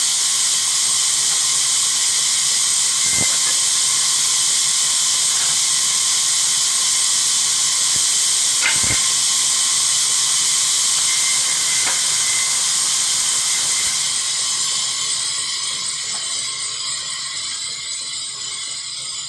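Vertical band saw cutting a wooden plank: a steady high hiss from the blade running through the wood, with a few sharp clicks. It grows gradually quieter over the last few seconds.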